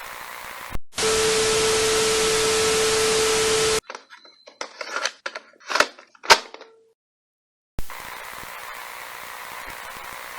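Broadcast glitch effect: a click, then about three seconds of loud TV static with a steady hum tone in it, cut off sharply. A few short, irregular crackles and blips follow, then about a second of dead silence, before a steady low hiss returns.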